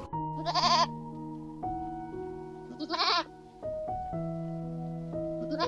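Goat bleating three times, each a short quavering call, about two and a half seconds apart, over calm background music with long held notes.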